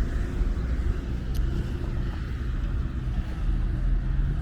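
Motor vehicle engine running, a steady low rumble of road traffic.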